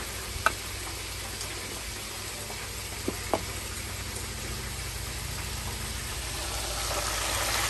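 Hot oil sizzling steadily in an electric deep fryer as whole floured squid fry, growing louder near the end. A few light clicks, about half a second and three seconds in.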